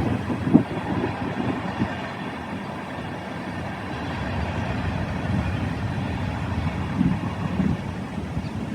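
A train's cars rolling past: a steady rush of noise with scattered low knocks.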